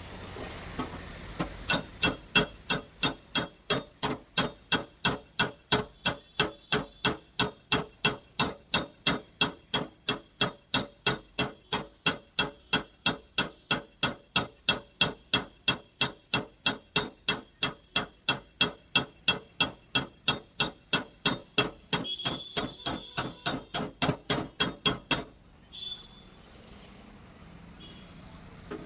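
Steady run of light hammer taps on a car's sheet-metal body panel, about two and a half strikes a second, as in paintless dent repair knocking the metal level. The tapping stops a few seconds before the end.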